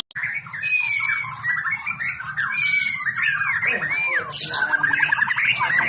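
White-rumped shama singing a continuous, varied stream of clear whistles, pitch glides and chattering notes, with a fast trill about five seconds in.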